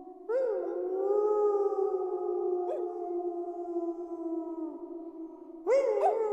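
A pack of wolves howling in chorus, several long held howls overlapping at different pitches. A new howl swells in just after the start, and another rises in near the end.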